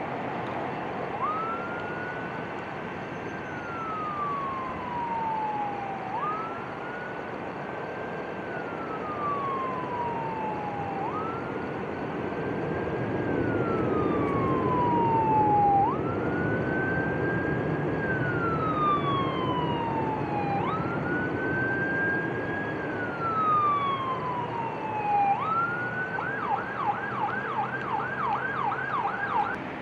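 Emergency vehicle siren on a slow wail, rising quickly and then falling slowly, about every four and a half seconds, that switches to a fast yelp about three-quarters of the way through. It sounds over a steady rumble of background engine or traffic noise that swells in the middle.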